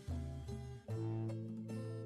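Instrumental music with plucked string notes over a low bass line.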